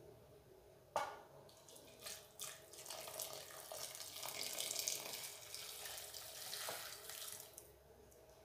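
Hot water poured from a glass jug into a cooking pot of chickpeas and meatballs, splashing steadily for about five seconds, starting about two seconds in. A sharp knock about a second in is the loudest moment.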